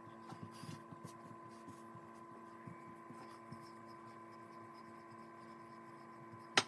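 A low steady hum with a few faint soft knocks from handling, and a sharp click near the end.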